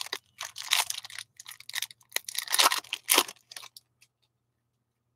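A stack of glossy hockey trading cards being flipped through in the hands, cards sliding and snapping against each other. It is an irregular run of crisp rustles and small snaps lasting about four seconds.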